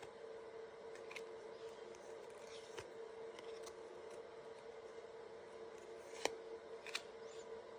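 Trading cards being handled: soft rustling with a few sharp clicks as cards snap against each other, the loudest about six seconds in, over a steady hum.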